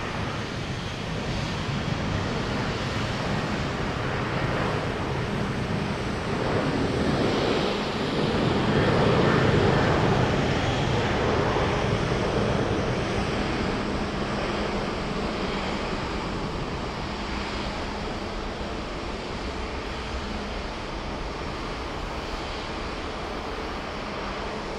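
Jet engines of airliners taxiing: a steady jet rumble and hiss that swells to its loudest about nine to ten seconds in, then slowly fades back.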